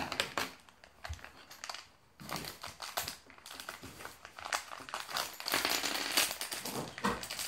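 Crinkling and rustling of a foil-plastic LEGO Minifigures blind-bag packet being handled and pulled open, with irregular crackles that are busiest about five and a half to six and a half seconds in.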